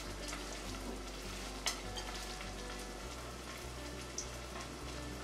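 Battered onion rings frying in hot oil in a pan: a steady sizzle with faint crackling, and one sharp click about a second and a half in.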